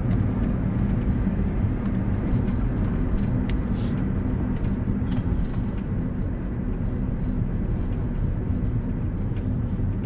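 Steady low engine and tyre road noise of a car driving, heard from inside the cabin.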